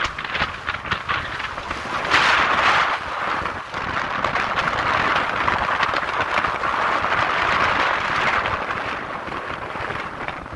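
Wind buffeting the microphone on an open boat deck: a steady rushing noise that swells in gusts, loudest about two seconds in.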